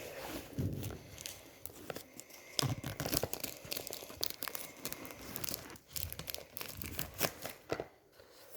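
Product packaging being handled and torn open by hand: scattered tearing, crinkling and sharp clicks from the box.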